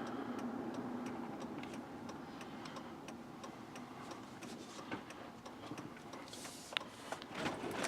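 Light ticking clicks, a few a second, inside a pickup truck's cab over low road and engine noise that fades as the truck slows.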